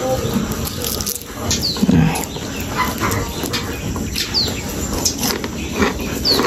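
Crisp-fried purple sweet potato gemblong torn apart by hand, its hard fried crust crackling and rustling with many small clicks. A bird gives short, falling high chirps several times.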